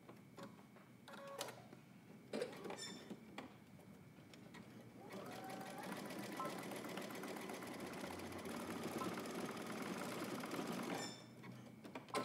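Electric sewing machine running a zigzag stitch back and forth over the overlapped ends of an elastic band, starting about five seconds in and stopping about a second before the end. Before the stitching there are a few light clicks.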